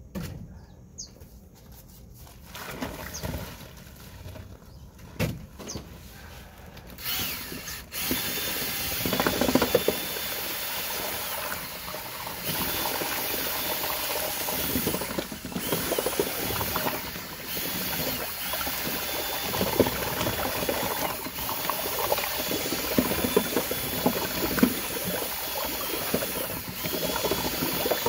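After a few knocks, an electric drill driving a paddle mixer starts about eight seconds in, stirring Portland cement into water in a galvanized steel can. Its motor whine runs in stretches, briefly dipping and rising again between them.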